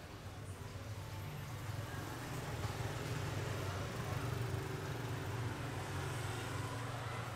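Low rumble of motor traffic that builds over the first few seconds and then holds steady.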